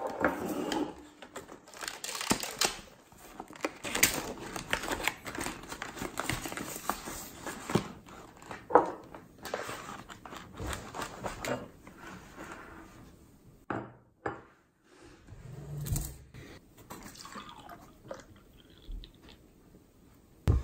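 Cardboard fried-chicken boxes being opened and handled: card flaps rustling and scraping, with scattered clicks and taps on the tabletop. Near the end, beer is poured from a can into a glass.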